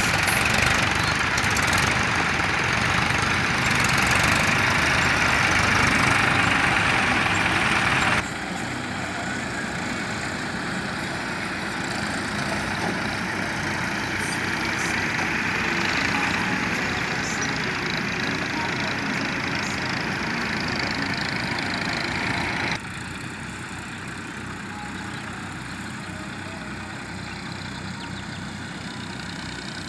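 Massey Ferguson tractor diesel engines running steadily as the tractors work muddy ground. Loudest at first, the sound drops suddenly about eight seconds in and again about two thirds of the way through, the tractors then sounding farther off.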